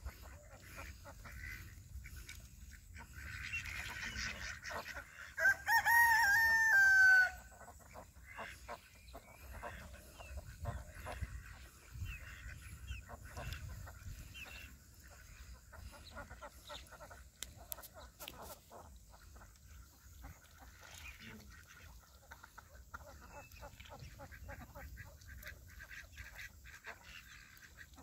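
A flock of domestic ducks quacking and chattering on the water. A rooster crows once, loud and long, about six seconds in.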